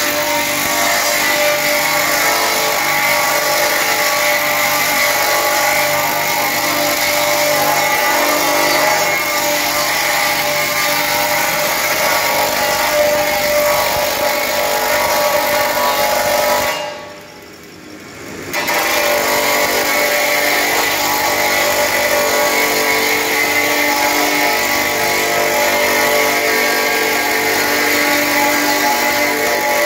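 Handheld power grinder with an abrasive wheel running steadily against a steel plate, grinding off paint. The sound drops away for about a second and a half about two-thirds of the way through, then resumes.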